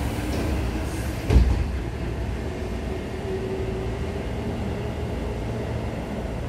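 Onboard running sound of a Tobu 9000 series electric train: a steady rumble of wheels on rail, with one sharp knock about a second and a half in.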